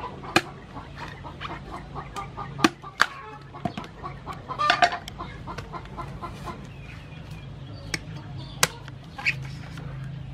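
Chickens clucking, with a few sharp knocks and snaps as palmyra palm fruits are pulled and cut from their bunch. The knocks come about half a second in, around three seconds, and twice near eight to nine seconds.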